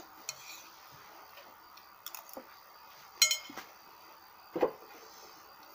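A few scattered clinks and knocks of stainless-steel bowls and utensils; the loudest, a little over three seconds in, rings briefly like metal, and a duller knock follows about a second later.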